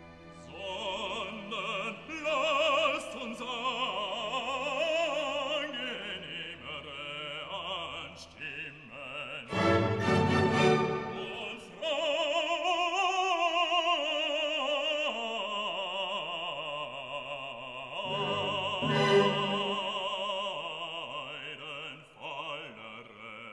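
Opera music: a singer with a wavering, vibrato voice over an orchestra.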